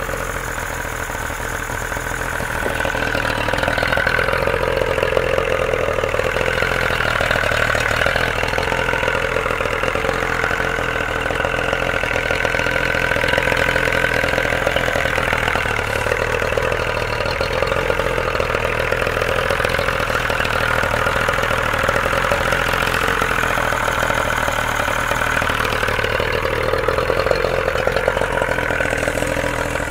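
Yamaha 50 hp outboard motor running steadily out of the water on its test run, a few seconds in growing louder and then holding an even note.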